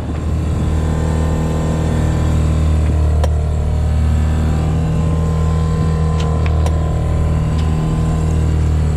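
A 9.9 hp outboard motor running at a steady speed, pushing the sailboat along with an even drone. A few short clicks sound over it.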